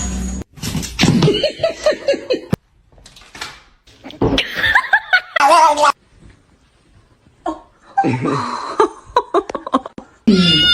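People laughing in three separate bursts, each cut off sharply.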